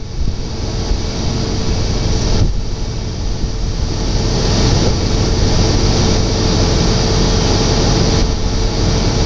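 Ford pickup truck's engine running hard as it pushes through deep mud and water, a steady rushing noise with a heavy low rumble that grows louder from about two and a half seconds in.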